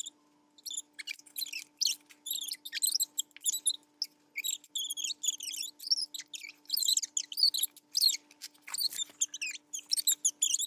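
Electronic sound effects from a battery-powered toy military tank play set: a steady low electronic tone under a rapid stream of high chirps and warbling beeps, several a second.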